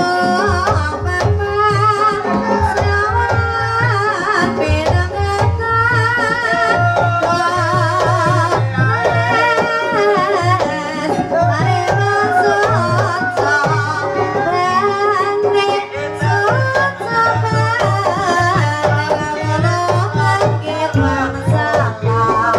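Banyumasan ebeg accompaniment: gamelan music with a steady beat of kendang hand drums under a wavering sung melody.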